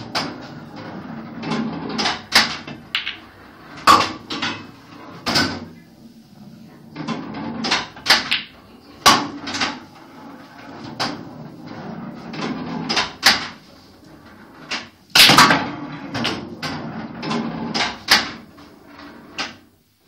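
Pool balls clacking through a run of shots: the cue tip striking the cue ball and balls colliding, heard as many sharp knocks in quick clusters. Between them is a low rumble of balls rolling and of potted balls dropping into the table.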